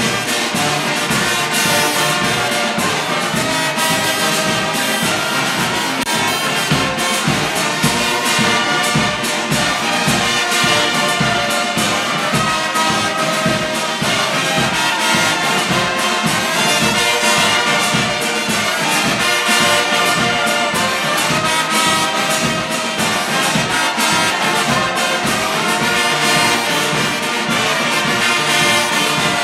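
Brass band of trumpets, trombones and tubas playing a tune together, with a steady beat.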